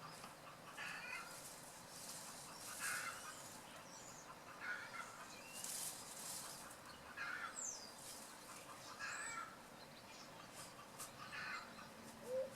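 Domestic hen giving short, rough, repeated calls, about one a second, faintly.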